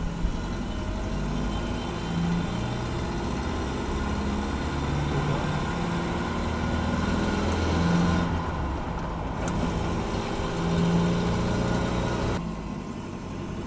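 Nissan pickup's engine and road noise heard from inside the cab while driving, the engine note shifting up and down in pitch. The truck has a new clutch and a swapped transmission.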